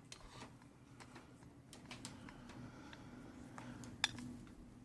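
Faint, scattered light clicks and taps, typical of handling a keyboard and its cable, over a low steady hum.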